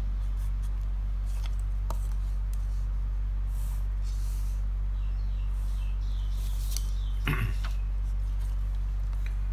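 Felt-tip marker scratching on paper in a few short strokes as straight lines are drawn along a ruler, over a steady low electrical hum.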